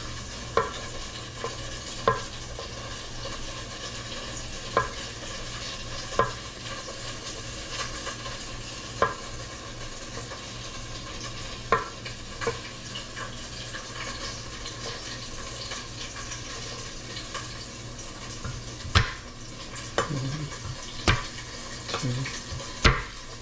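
Dumplings sizzling steadily as they pan-fry. Over it, a knife taps on a wooden cutting board as garlic cloves are trimmed: single knocks every few seconds, coming closer together near the end.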